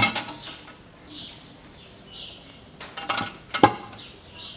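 Metal clinks and knocks of the rear differential cover and its bolts being handled by hand as the cover is fitted: a ringing clink at the start and a cluster of them around three seconds in, the last the loudest. Birds chirp faintly in between.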